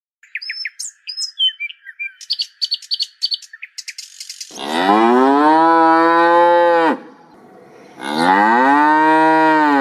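Birds chirping in quick high calls, then a cow mooing twice, each moo a long drawn-out call of about two seconds.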